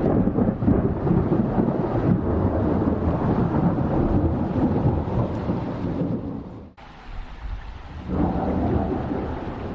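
Thunder rumbling over heavy rain, loud and low-pitched. It breaks off abruptly about seven seconds in, and a second rumble swells up about a second later.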